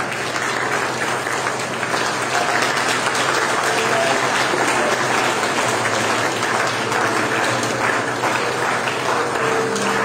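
A congregation applauding, many hands clapping at once in a dense, steady mass.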